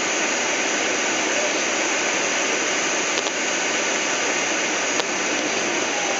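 Steady rush of air streaming past a glider's canopy, heard inside the cockpit as an even hiss, with a faint click about five seconds in.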